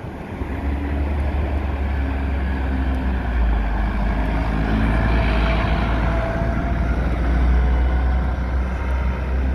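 A double-decker bus's diesel engine running as the bus pulls away and drives past at close range, a steady low drone with road and engine noise growing louder as it goes by in the middle.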